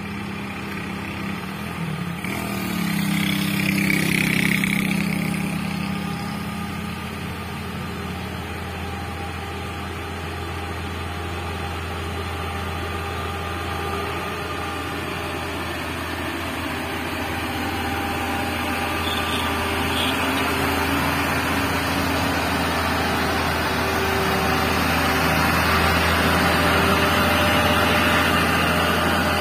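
A motorcycle passes about three seconds in. Then a heavily loaded tandem-axle cargo truck's diesel engine pulls steadily uphill, growing gradually louder as the truck approaches and passes close by near the end.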